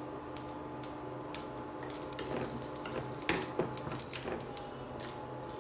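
Scattered sharp clicks and ticks from a pan of chana dal, urad dal and cumin roasting in butter as it is stirred, the strongest about three seconds in, over a steady low hum.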